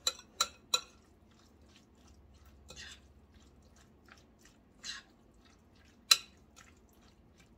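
A utensil stirring a sour-cream-dressed salad in a glass bowl: soft wet scraping, with sharp clinks against the glass, three in the first second and another about six seconds in.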